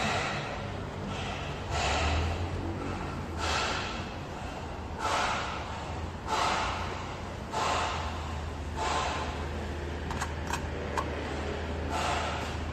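A person breathing heavily close to the microphone, about one breath every second and a half. A few light metallic clicks come about ten seconds in, from a tool on the valve cover nuts.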